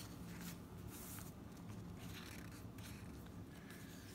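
Faint rustling of paper as the pages and inserts of a handmade junk journal are handled and turned.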